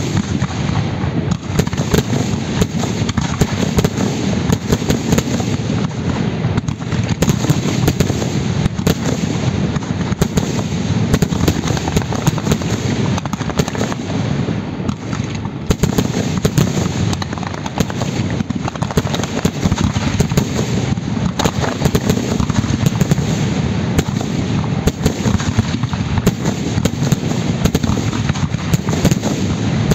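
Fireworks display: many shells and fountains firing and bursting in quick succession, a dense, continuous run of sharp bangs and crackle with no pauses.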